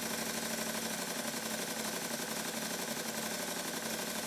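Stuart Turner triple expansion model steam engine running steadily on compressed air at about 40 psi, a fast, even beat from its cylinders and valve gear. Its valve gear is newly timed so that it runs and sounds the same in both directions.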